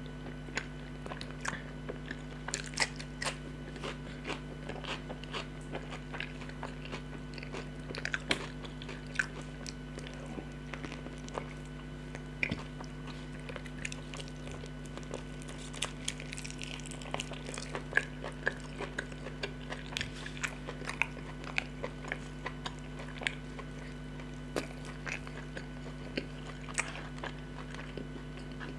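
Close-miked eating: chewing and crunching food, with many short sharp mouth clicks and smacks all through, over a steady low hum.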